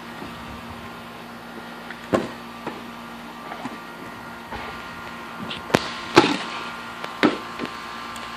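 A rubber playground ball thumping a handful of times on concrete as it is bounced and thrown, over a steady background hum.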